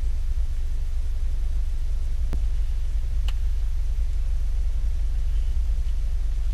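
A car engine idles as a steady low rumble heard inside the cabin. Two faint clicks come about a second apart midway through.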